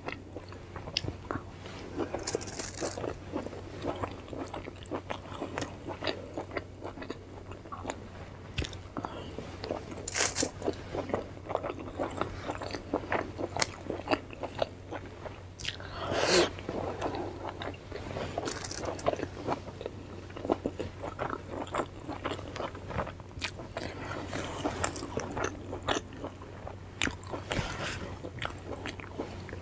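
Close-miked eating of pani puri: crisp hollow puri shells crunching as they are bitten whole, then chewed, with a few louder crunches along the way. A low steady hum runs underneath.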